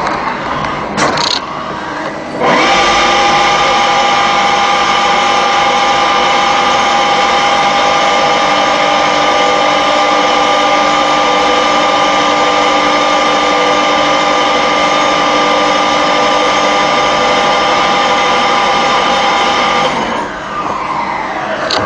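CNC polygon lathe running: its spindle comes up to speed about two and a half seconds in and runs steadily with a whine of several steady tones. Near the end it winds down, the pitch sliding down.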